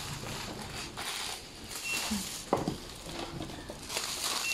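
Thin plastic carrier bag rustling and crinkling as chocolate bars and jars are packed into it, with a sharp knock about two and a half seconds in.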